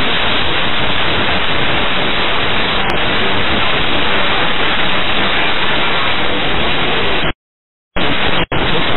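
Loud, steady hiss of radio static on an air traffic control frequency, with no voice in it. It cuts out for about half a second near the end, then returns with a brief dropout.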